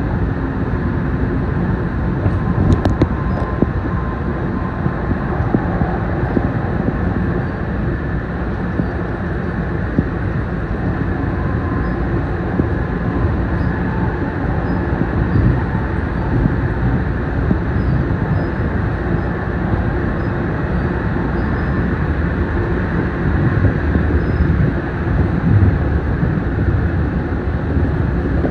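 Siemens P2000 light-rail train running steadily along the track, a continuous rumble of wheels and running gear heard from inside the front of the car. A couple of sharp clicks come about three seconds in.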